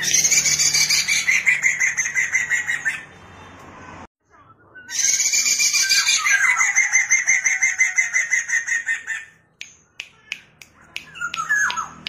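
Poksay mandarin, a laughingthrush, singing long runs of rapid, loud repeated high notes: one run at the start, a brief pause, and a longer run from about five seconds in, then a few short separate calls near the end.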